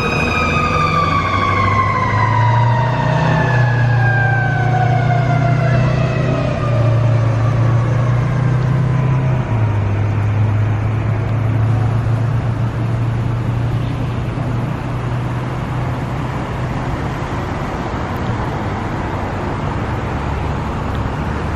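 Fire engine's siren held steady, then winding down over about eight seconds, under the truck's engine drone as it pulls away; the engine note changes pitch a few times, then settles into steady road noise.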